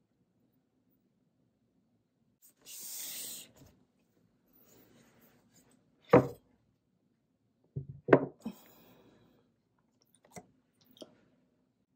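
Things handled on a desktop: a short sliding rub about three seconds in, then a sharp knock as a computer keyboard is set down on the desk, a few more knocks around eight seconds, and two light taps near the end.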